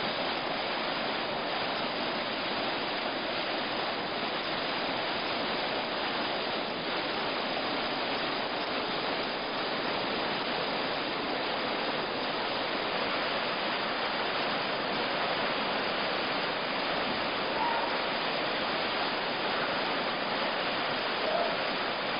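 Whitewater rapids rushing steadily down a river.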